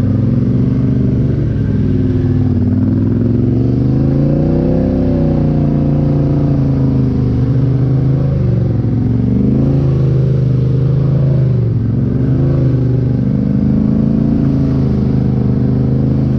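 Polaris Sportsman 850 HighLifter ATV's twin-cylinder engine, fitted with a Big Gun Evo U exhaust and quiet insert, running under varying throttle while being ridden, its pitch rising and falling repeatedly.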